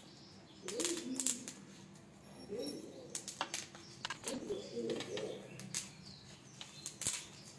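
A bird cooing in short low phrases that repeat every second or two, mixed with sharp clicks and taps of a hand tool on the metal fittings of a chair being assembled.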